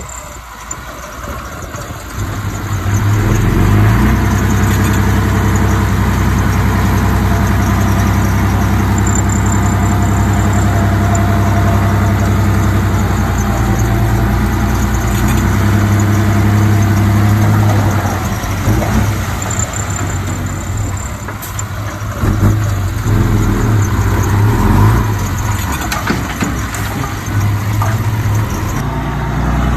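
Diesel engine of heavy earthmoving equipment running, growing louder about three seconds in and then working steadily, its pitch rising and falling in the second half.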